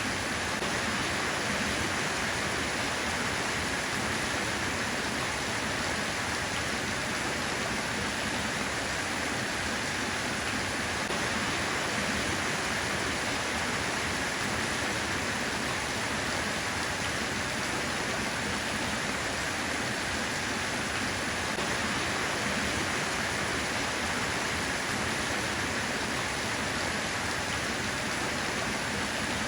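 Steady rain, an even hiss of falling water without pauses or thunder.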